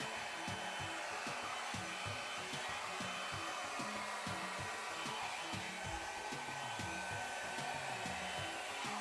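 Hair dryer running steadily, with a continuous rush of air. Its air stream is blowing wet acrylic paint across a canvas in a Dutch pour.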